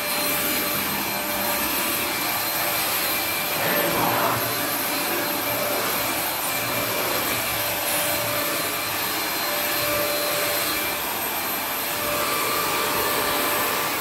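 Fakir Daky 1600 W corded stick vacuum cleaner running steadily while being pushed over a rug: a constant rush of suction with a steady high whine from the motor.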